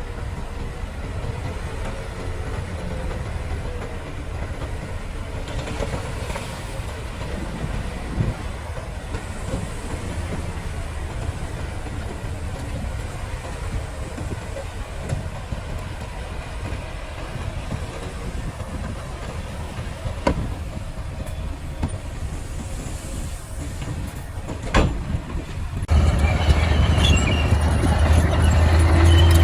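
Bulldozer's diesel engine running with the clatter of its steel crawler tracks. Near the end the sound suddenly grows louder and steadier, with a strong low engine hum.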